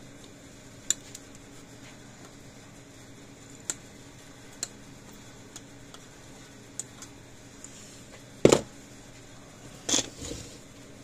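Light clicks and taps from tools and small parts being handled on a workbench during circuit-board repair, with two louder knocks near the end, over a faint steady hum.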